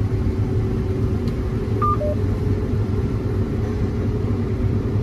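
Combine harvester running under load while harvesting, heard from inside its cab: a steady low drone of the engine and threshing machinery. A brief two-note beep sounds about two seconds in.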